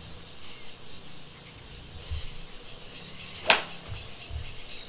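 A 7-iron striking a golf ball off a driving-range mat: a single crisp, sharp click about three and a half seconds in, over steady background noise.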